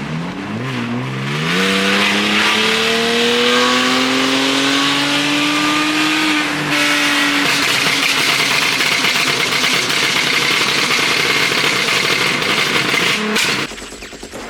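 Car engine pulling at full throttle, revs climbing steadily through one gear, a short break at the gear change about seven seconds in, then pulling hard again until the throttle is lifted shortly before the end.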